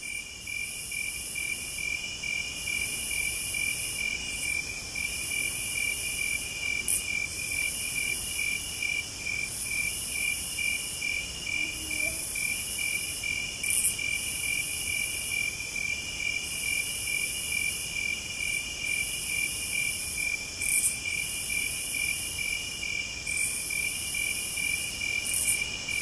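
Chorus of tropical jungle insects, cicadas among them: a steady, fast-pulsing trill under a higher shrill buzz that comes in phrases a second or two long with brief gaps.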